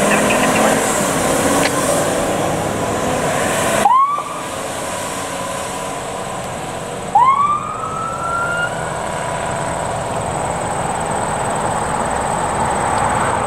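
A fire department utility truck drives off with steady engine and road noise. Its electronic siren gives two short rising whoops, about four and seven seconds in; the second rises further and holds for over a second.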